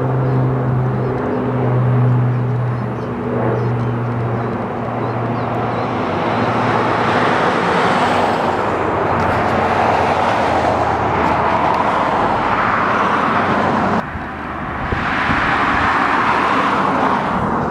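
Twin-engine firefighting air tanker flying overhead. A steady propeller drone fades within the first few seconds and gives way to a loud, even rushing noise, with a sudden drop and change about 14 seconds in.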